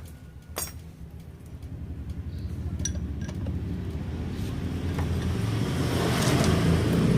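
A motor vehicle engine running in the background, its low rhythmic rumble growing steadily louder over several seconds, with a light metallic click about half a second in.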